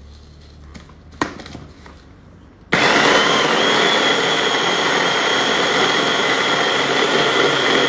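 Bosch hand blender with its chopper bowl attachment switched on about three seconds in, its motor running steadily with a high whine as it chops a cocoa mixture. A small knock of the blender being seated on the bowl comes about a second in.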